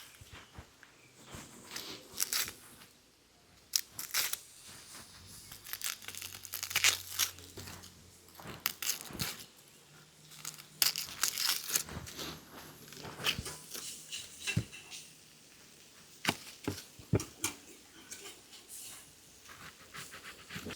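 Irregular crinkling and tearing with sharp taps and clicks, in short bursts with pauses between them, the handling noises of food being prepared for cooking.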